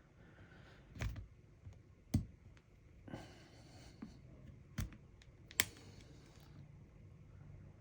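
Small sharp clicks and light scraping as a phone's frame is pried away from its screen with a pry tool: about five separate clicks, the loudest about five and a half seconds in.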